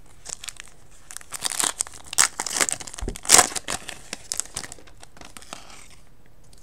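Plastic foil wrapper of a 2012 Bowman baseball card pack crinkling and tearing as it is ripped open by hand. A quick run of sharp crackles, loudest about three seconds in, dies away near the end.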